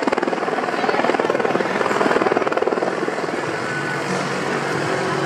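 AH-64 Apache attack helicopter flying past, its rotor blades chopping rapidly. The chop eases about three seconds in, and steady music tones come up near the end.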